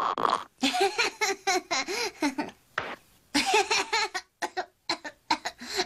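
A sick cartoon boy's voice coughing in runs of short voiced hacks, with a brief pause about halfway through.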